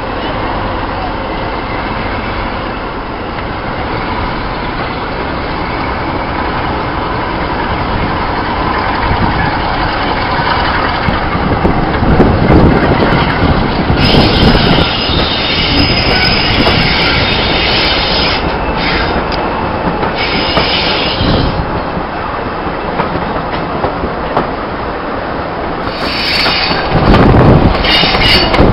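Passenger train hauled by a Class 46 'Peak' diesel locomotive, D182, gathering speed, heard from an open carriage window: the locomotive's engine and the wheels running on the rails in a steady rumble. About halfway through a high wheel squeal sets in as the train rounds a curve, and it comes back near the end.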